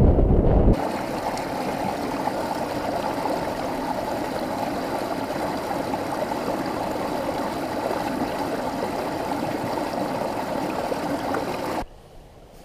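Wind buffeting the microphone for the first second or so, then a small mountain stream rushing and splashing steadily over rocks in a low cascade; the water sound cuts off suddenly near the end.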